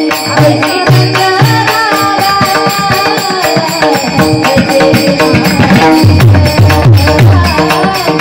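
Marathi devotional song: women's singing with melody accompaniment and a hand drum, whose low strokes slide down in pitch in quick runs, with shaker-like percussion.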